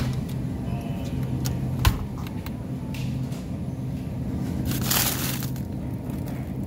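Plastic bag of frozen, ice-glazed chicken wings rustling and crunching as it is handled, about five seconds in. Before it comes a single sharp knock about two seconds in, over a steady low hum.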